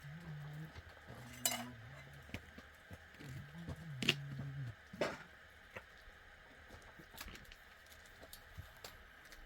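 A few sharp metallic clinks and knocks, like utensils or pots being handled, the loudest three in the first half, over a low hum that comes and goes in short stretches.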